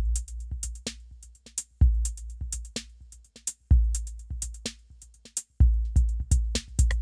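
Background electronic music: a drum-machine beat with a deep bass hit about every two seconds and quick hi-hat ticks between them.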